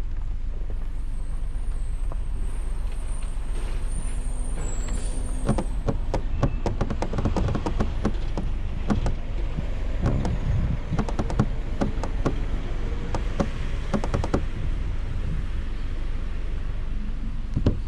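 Snow being cleared by hand: a run of sharp scrapes and knocks from about five seconds in until about fourteen seconds, over a steady low rumble.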